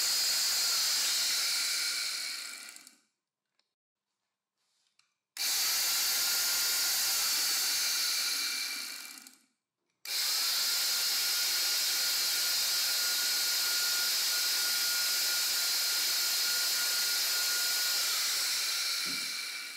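Vintage electric hammer drill, converted to run on an 18V Milwaukee battery with a rewound armature and permanent-magnet field, running with no load: a steady motor whine that spins down about two seconds in, then starts abruptly twice more after short silences, a run of about three seconds and a longer run of about eight seconds, each winding down as the trigger is released.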